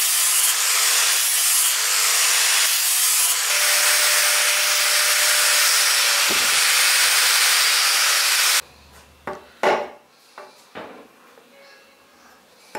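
Angle grinder with a sanding disc sanding a wooden axe handle: a loud, steady grinding rasp. About eight and a half seconds in it cuts off, and a few sharp knocks follow as the axe strikes wood.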